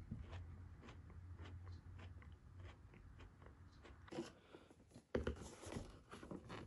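Close, quiet chewing of a bitten chocolate-covered wafer KitKat, with small crunches. From about four seconds in come a few louder crackles and knocks, the loudest just after five seconds.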